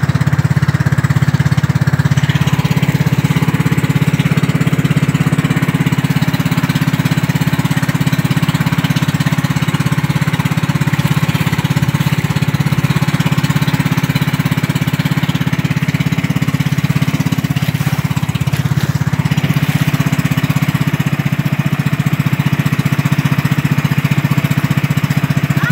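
Small engine of a motorized outrigger boat running steadily under way, a loud, even drone with the rush of wind and water over it.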